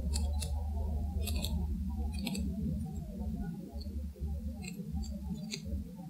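Heavily noise-reduced woodland field recording: a steady low rumble and hiss, with scattered short, sharp ticks and clicks, a few bunched about a second and two seconds in and again near the end. The recordist labels the ticks as footsteps.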